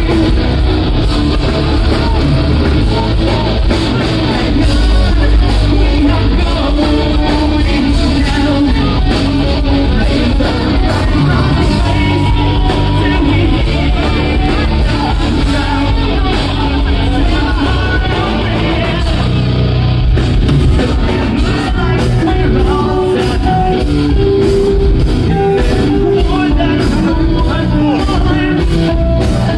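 Live rock band playing loud, with singing over the band.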